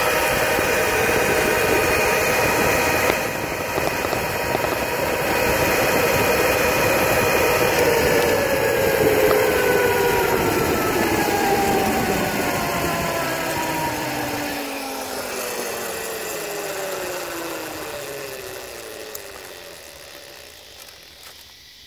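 1800 W brushless electric mini bike motor whining under way, with wind and tyre noise. From about the middle, the whine slides steadily down in pitch and fades as the bike slows to a stop.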